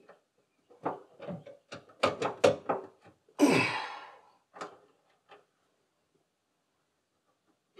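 A quick run of sharp clicks and knocks from car parts being handled and pushed into place by hand, then a short breathy rush about three and a half seconds in, and two more light knocks before it goes quiet.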